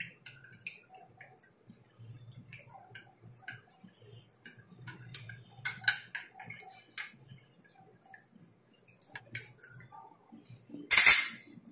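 Steel spoon stirring in a glass of spiced water, tapping and clinking lightly against the glass in scattered small ticks, with one louder clatter near the end.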